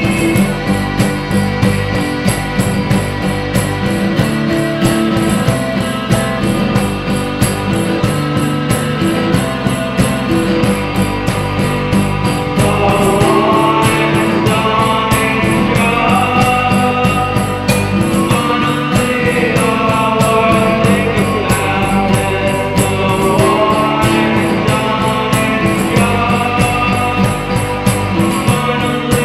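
Rock song played by electric guitar, organ and drum kit, with a steady beat of cymbal strokes. About 13 seconds in it grows a little louder as held, wavering higher notes come in over the guitar.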